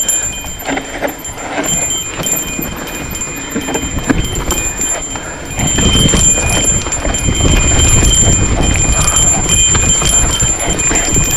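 Mountain bike descending dry, rocky dirt singletrack: the tyres crunch over sand and stones while the bike rattles and clatters with many small ticks and knocks. From about halfway a heavier low rumble takes over, as wind and rough ground hit the helmet camera's microphone.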